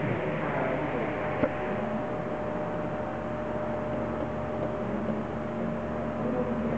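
Indistinct chatter of a roomful of people over a steady hum of room machinery, with one sharp click about a second and a half in.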